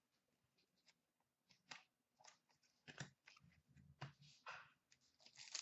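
Near silence, with faint scattered clicks and rustles of trading cards being handled and stacked, starting about a second and a half in.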